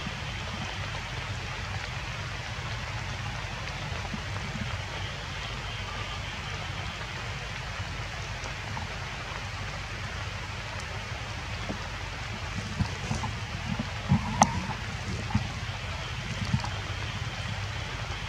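Steady rain falling on wet stone, a continuous even hiss. A few sharp ticks stand out in the second half, the loudest about fourteen seconds in.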